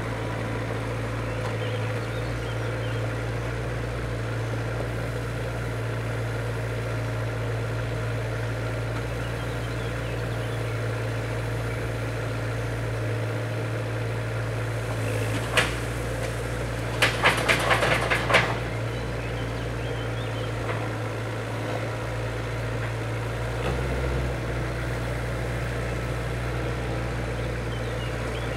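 Mini loader's engine running steadily while it works, with a sharp knock a little past halfway and then about a second and a half of rattling clatter as its bucket tips the load into a truck's load bed.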